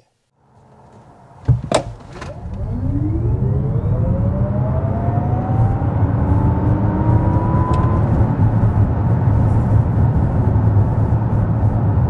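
Lexus RZ 450e dual-motor electric car accelerating at full power, heard from inside the cabin. A sharp knock comes about a second and a half in. Then an electric motor whine rises steadily in pitch for about six seconds over a growing tyre and road rumble.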